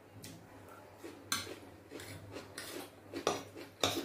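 Close-up eating sounds: a metal fork clinks sharply against a ceramic plate about four times, the loudest near the end, with softer chewing in between.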